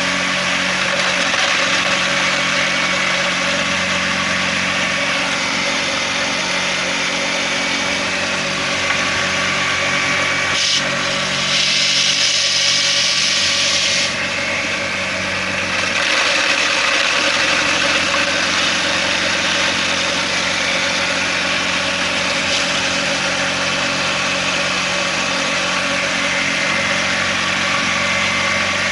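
Homemade grain grinder driven by a washing machine motor, running steadily with a motor hum and a rattling hiss of blades and screen. The hiss grows louder for about two seconds near the middle, then eases briefly.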